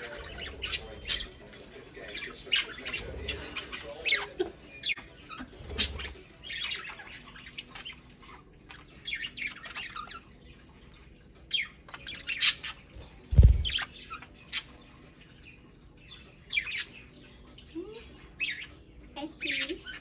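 Budgerigars chirping and squawking in short, scattered calls while they feed, with one loud, short thump about two-thirds of the way through.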